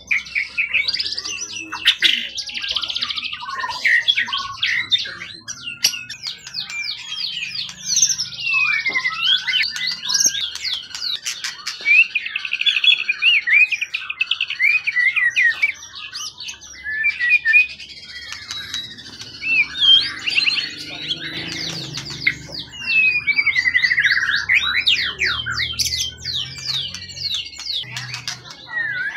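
A caged songbird singing a long, varied song without pause: rapid trills, whistled notes and quick rising and falling sweeps.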